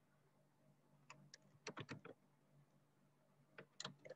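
Faint computer keyboard keystrokes: a short run of light clicks as a word is typed, in two little bursts with a pause between.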